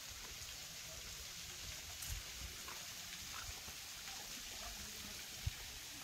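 Faint, steady splashing hiss of a thin, low-flow waterfall, a few light streams falling down a rock face into a pool, with a low fluttering rumble and one small knock near the end.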